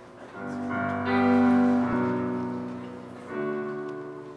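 Stage keyboard with a piano sound playing the slow intro to a worship song: held chords, a new one struck about a third of a second in and again a little past three seconds, each dying away.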